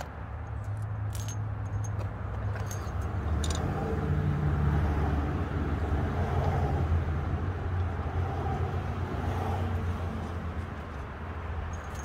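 A steady low hum, with a few light metallic clinks in the first few seconds, like hand tools on the quad's metal parts.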